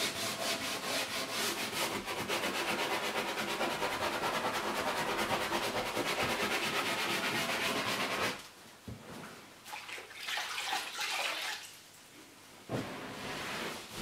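Small dish scrub brush scrubbing wet foam leather cleaner into a leather couch cushion: a fast, even brushing at about five strokes a second, agitating the cleaner into the surface. About eight seconds in it stops, giving way to quieter, uneven rubbing.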